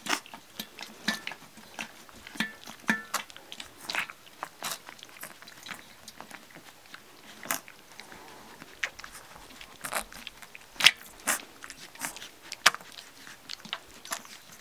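Young Labrador retriever puppies lapping and smacking at milk in a stainless steel saucer dish: irregular wet clicks and smacks, with a few sharper, louder ones in the second half.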